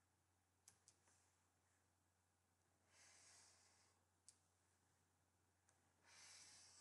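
Near silence: a few faint computer mouse clicks and two soft breaths, over a steady low hum.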